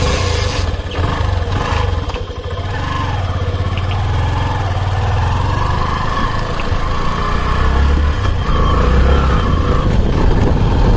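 Motorcycle engine coming in suddenly and running as the bike rides off, its pitch rising and falling and growing slightly louder.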